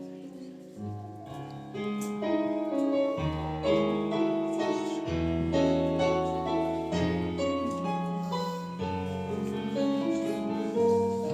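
Piano music: chords of held notes over a low bass line.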